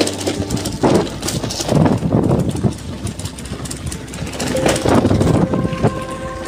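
Electric scooter ridden over a rough dirt lane: an irregular rumble and rattling as it jolts over the ruts. A steady tone joins about two-thirds of the way through.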